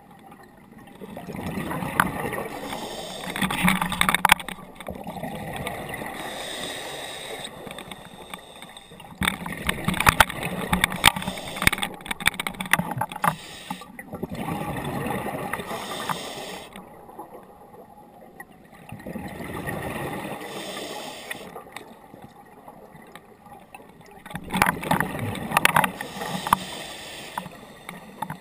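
Scuba diver breathing through a regulator underwater: exhaled bubbles gurgle and crackle in bursts a few seconds long, repeating several times with quieter stretches between.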